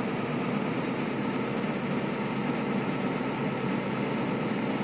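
Hino 500 FM260JD truck's six-cylinder diesel engine running steadily at a raised idle of about 1,000 rpm, heard from inside the cab, held there to build pressure in its empty air brake tanks.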